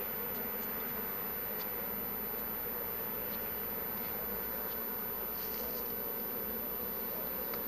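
Honey bees buzzing steadily at an opened hive while honey frames are brushed clear of bees: an even, low hum with a few faint ticks.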